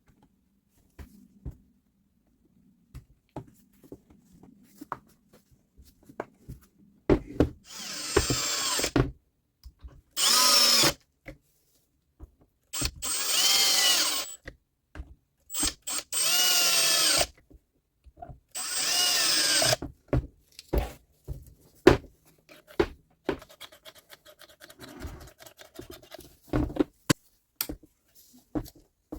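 Milwaukee SSD 1100X reciprocating saw, freshly rebuilt with new armature, field and bearings, run in five short bursts of one to two seconds each, its motor whine rising as the trigger is pulled and falling as it is let go. Scattered handling clicks come between the bursts.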